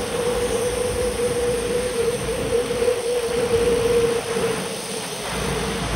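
Riding a bicycle on wet asphalt: wind rushing over the bike-mounted camera's microphone and tyres hissing on the wet road, with a steady hum that fades briefly about four and a half seconds in.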